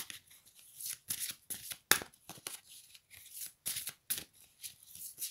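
A deck of oracle cards being shuffled by hand: an irregular run of quick card slaps and rustles.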